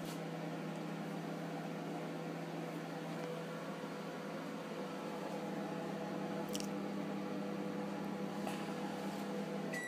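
Microwave oven running with a steady low hum while it heats.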